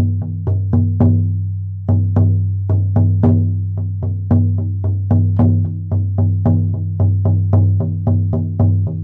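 16-inch buffalo-skin shamanic frame drum on an ash frame, struck with a firm beater in a steady fast beat, each stroke ringing with a deep sustained tone. The drum is tuned to a mid-range pitch. There is a short break in the beat about one and a half seconds in.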